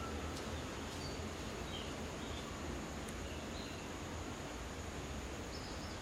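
Woodland ambience: a steady hiss and low rumble with faint, short bird chirps scattered every second or so.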